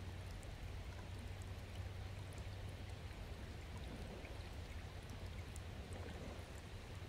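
Shallow stream flowing steadily as water runs back down its bed after a blockage upstream was cleared, with scattered faint small ticks over a steady low rumble.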